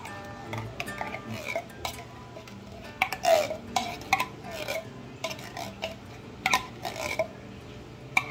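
Metal spoon scraping and clinking against the inside of a tin can, scooping out thick condensed cream of mushroom soup, with irregular sharp clicks throughout.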